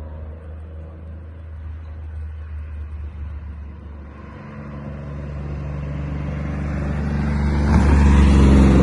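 Car engine running with a low, steady note that grows steadily louder from about halfway through.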